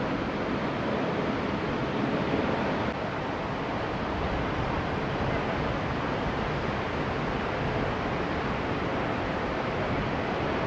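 Steady rush of ocean surf, even and unbroken, with a brief dip in level about three seconds in.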